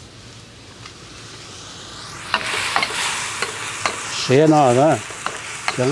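Beef and broccoli sizzling in a hot pan as they are stir-fried, with a utensil clicking and scraping against the pan; the sizzle swells about two seconds in. A short wavering vocal sound comes twice in the second half.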